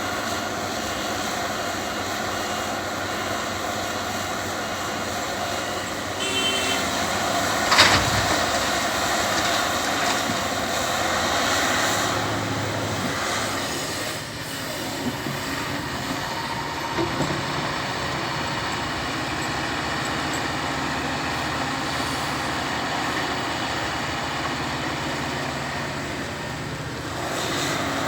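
Caterpillar 352F hydraulic excavator at work: the machine runs steadily throughout, with one sharp knock about eight seconds in.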